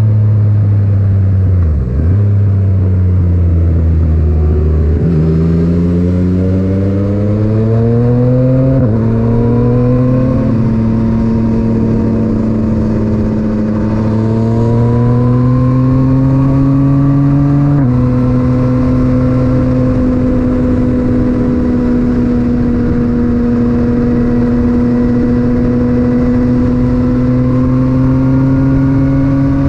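Yamaha MT-09's three-cylinder engine through an Akrapovic titanium exhaust, heard from onboard the bike. The revs fall over the first couple of seconds, then climb in several pulls broken by gear changes, and settle into a steady pitch that creeps up toward the end.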